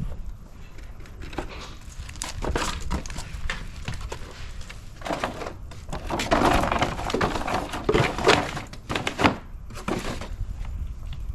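Work noise of hardware being handled: scattered knocks, clicks and rustling, with a busier stretch of clatter from about five to nine seconds in.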